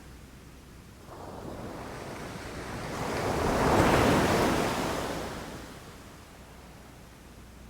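A single ocean wave rising, breaking in a long surge of surf and washing back out, between quieter stretches of sea.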